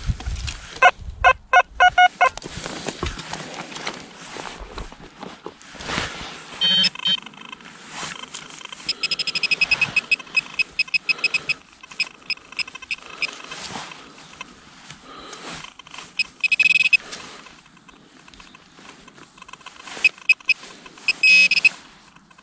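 Handheld metal-detecting pinpointer beeping in rapid pulses as it is worked through a clump of dug soil, signalling buried metal. Short runs of beeps come and go, a lower run about a second in and higher, faster runs later, with hands crumbling and scraping the earth in between.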